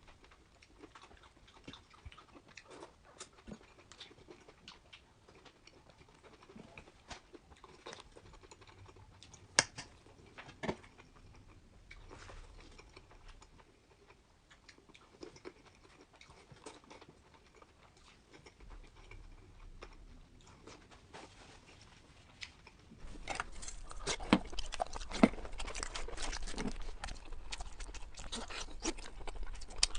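Close-miked eating sounds: scattered clicks and crunches of chewing and biting, becoming much louder and denser about two thirds of the way in.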